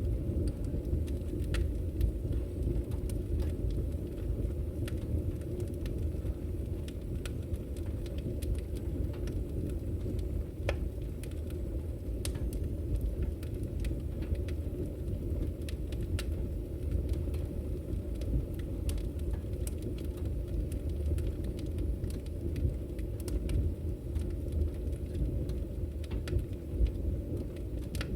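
Open wood fire burning in a fireplace: a steady low rumble of flames with irregular sharp crackles and pops.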